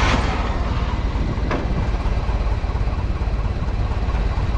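Forklift engine running steadily, with a single sharp knock about a second and a half in.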